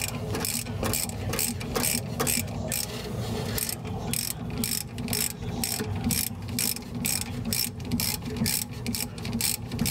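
Hand ratchet wrench with a socket clicking rapidly as it is swung back and forth, turning a nut on the front steering linkage.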